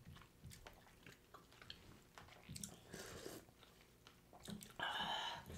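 Close-up eating sounds of soup and rice taken from spoons: quiet chewing and small mouth and spoon clicks, with a louder, longer mouth noise for about half a second near the end.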